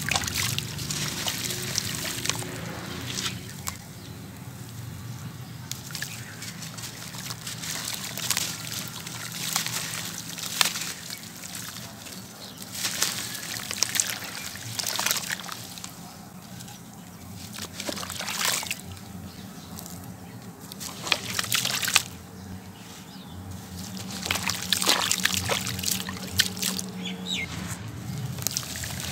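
Hands squeezing and sloshing wet sand-cement mud in a basin of water, in repeated bursts of wet squishing and dribbling.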